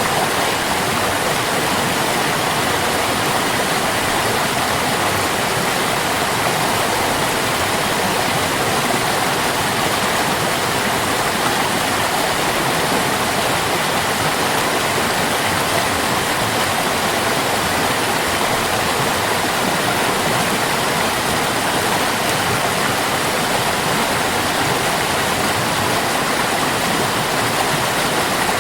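Water stream flowing steadily, an even rush of water with no breaks or changes.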